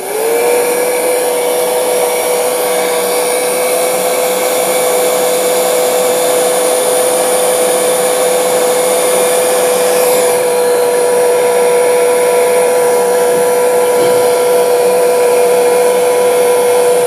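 Heat gun switched on and blowing steadily, its fan whine rising to a steady pitch in the first half-second, as it shrinks heat-shrink tubing over a small drone speed controller.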